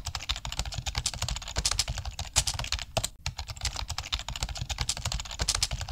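Rapid, irregular clicking and rattling from a camera being carried and jostled while walking, over a low rumble of handling noise.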